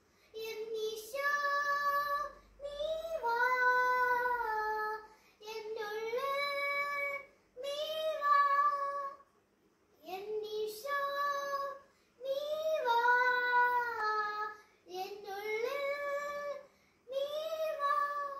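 A young girl singing a Christmas song solo and unaccompanied, in short phrases with brief breaths between, the longest pause about halfway through. The singing stops at the very end.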